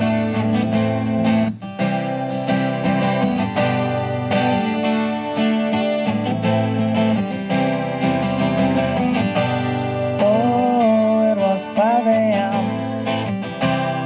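Twelve-string acoustic guitar strummed steadily in a song's introduction. Between about ten and twelve seconds in, a wordless sung line slides over the chords.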